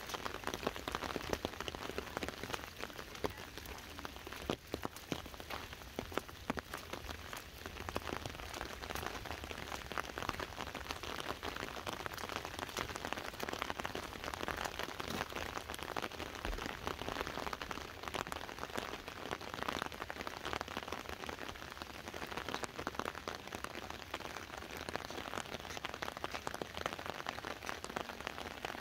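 Steady rain falling on an umbrella held overhead: a dense, even stream of small drop hits over the hiss of rain.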